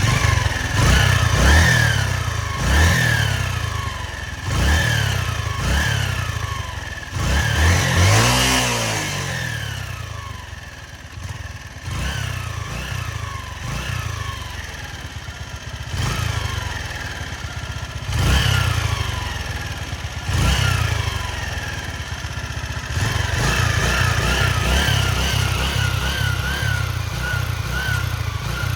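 Honda CG Titan single-cylinder four-stroke engine idling in neutral and revved in short throttle blips, about nine times, then idling steadily near the end. Under it is a faint rattle deep in the engine that the owner puts down to worn piston rings.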